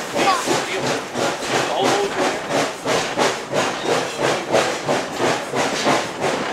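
Steam exhaust of No. 4, a 1916 2-6-2 Prairie-type steam locomotive, pulling its train. It gives an even beat of chuffs, about two to three a second, over a steady hiss of steam.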